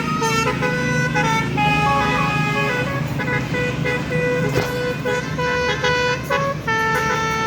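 A bus's basuri melody horn playing a tune of short held notes stepping up and down, over the low rumble of the bus's engine.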